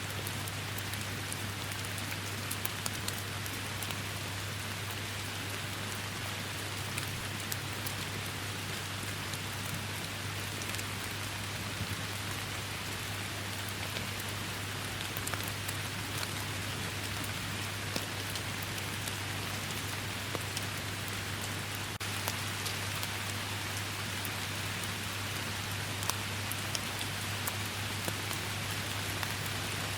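Steady rainfall, a constant hiss of rain with many individual drops ticking through it. A steady low hum runs underneath.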